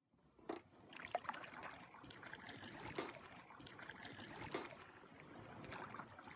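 Faint water sounds: gentle lapping with small irregular splashes every second or so.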